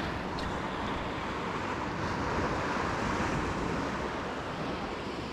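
Ocean surf washing against rocky shoreline, a steady rush that swells a little about two to three seconds in, with some wind on the microphone.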